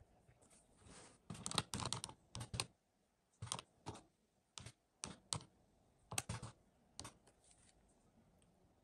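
Buttons of a small plastic pocket calculator being pressed: an irregular run of sharp clicks and taps, some bunched in quick clusters, from about a second in until about seven seconds in.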